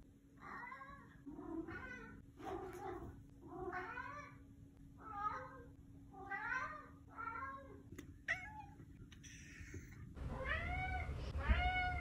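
Domestic tabby cat meowing over and over, short rising-and-falling meows about one a second. After a pause, two louder meows come near the end.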